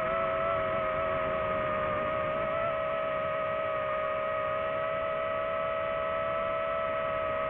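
DJI FPV drone's motors and propellers giving a steady high whine over a rushing noise, its pitch held level at constant throttle.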